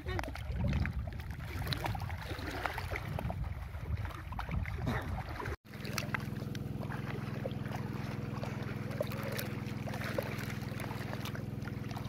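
Water sloshing and splashing as water buffalo wade through a river. After a short break about halfway through, a steady low motor hum comes in beneath the splashing.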